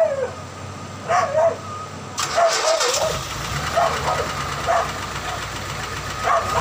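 Older car's petrol engine being cranked by the starter and catching about two seconds in, then running on at a steady idle: a first start after sitting unused for a long time. A dog barks repeatedly over it.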